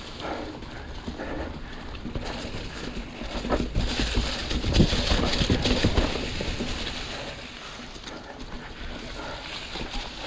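Mountain bike riding along leaf-covered singletrack: tyres crunching through dry leaves and knocking over rocks, with the bike rattling. Loudest from about four to six seconds in.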